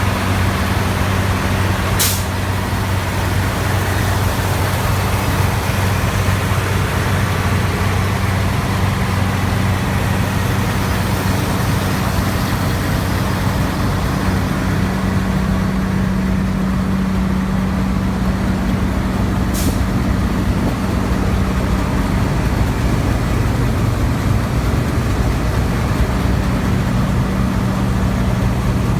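New Holland TX68 combine harvester running steadily on its Iveco diesel engine, a constant low engine drone under an even hiss. Two short sharp ticks cut through it, one about two seconds in and one near the twenty-second mark.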